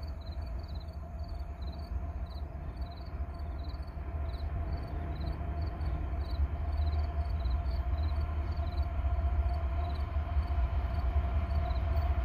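Approaching Norfolk Southern diesel freight locomotives hauling an oil tanker train: a low rumble with a steady hum, growing slowly louder. Insects chirp in a steady rhythm over it.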